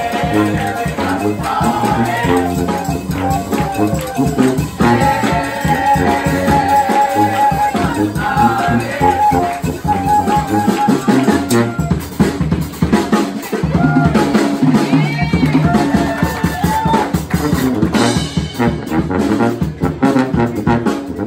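Live horn-band music: saxophones, trumpets, trombone and sousaphone playing a tune together over a steady drum-kit beat.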